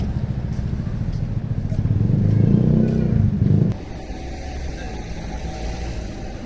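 A motor vehicle's engine running close by, growing louder about two seconds in and then dropping off sharply a little before the four-second mark, leaving a lower street hum.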